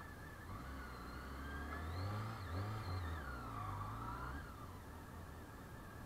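Honda CBR 600 F4i's inline-four engine pulling away from a standstill. The revs rise, dip about two and a half seconds in as it shifts gear, climb again, then ease off.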